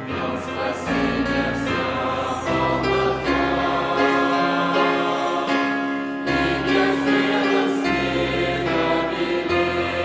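A choir singing a Christian hymn in slow, long-held chords.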